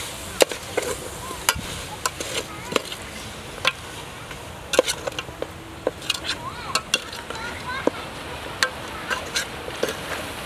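Metal ladle stirring a thick stew in an aluminium pot, clinking and scraping against the pot's side in irregular clinks about once a second over a steady hiss.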